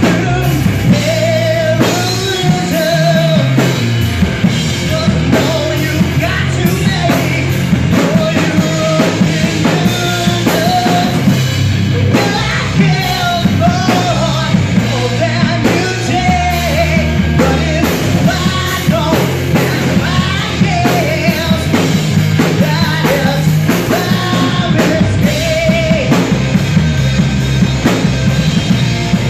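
Live rock band playing loud: a male singer over electric guitars and a drum kit.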